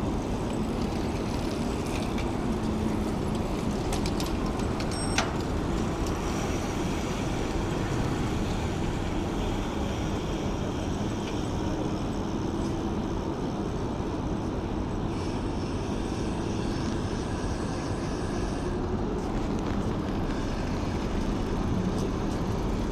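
Steady rumble of road traffic in a city, a continuous wash of passing vehicles with no single one standing out. A short sharp click sounds about five seconds in.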